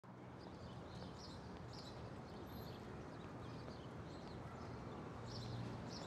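Faint city street ambience: a low steady hum and hiss, with small birds chirping now and then.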